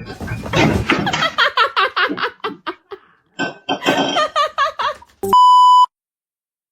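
Excited vocal sounds in quick repeated bursts, then a loud, steady electronic beep tone lasting about half a second, a bit over five seconds in, which cuts off into dead silence.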